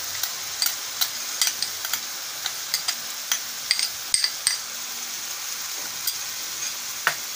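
Water lily stems sizzling steadily in oil in a frying pan. A spoon scrapes and taps mustard and poppy seed paste out of a steel bowl into the pan, giving a run of light clicks in the first four and a half seconds and one sharper tap near the end.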